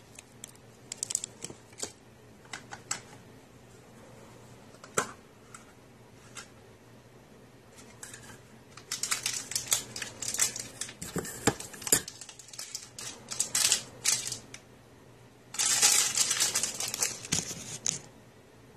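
Hands handling small hard plastic toys and packaging: scattered clicks and taps, a quicker run of clicking in the middle, then about two seconds of crinkling near the end.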